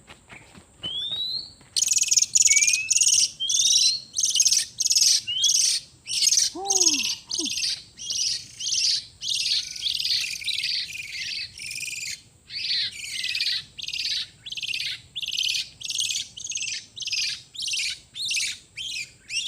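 Oriental magpie-robin (kacer) calling: a few rising whistles, then a long run of harsh, rasping scolding calls at about two a second.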